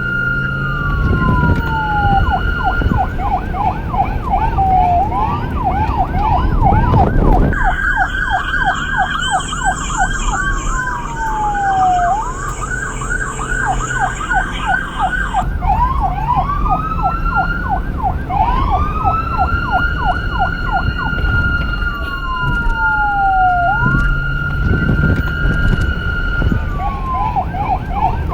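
Police car's electronic siren cycling through its modes: a held high tone that drops away, fast yelp sweeps about four a second, a shriller yelp for several seconds in the middle, and slow rising wails. A low vehicle rumble runs underneath.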